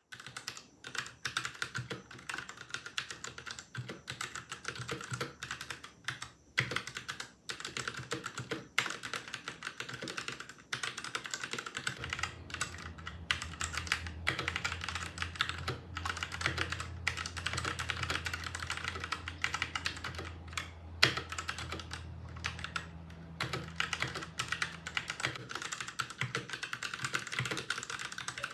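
Fast, continuous typing on a Royal Kludge RK68 65% mechanical keyboard with brown tactile switches and foam installed inside the case, with a few short pauses. A low steady hum joins about twelve seconds in.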